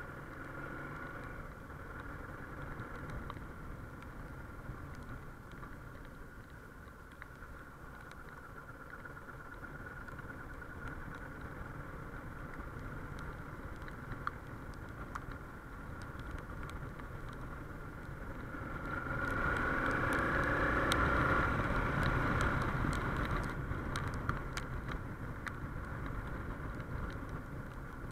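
Suzuki XF650 Freewind's single-cylinder engine running as the bike rides along and gathers speed, picked up by a chest-mounted camera's built-in microphone. The sound grows louder for a few seconds about two-thirds of the way through.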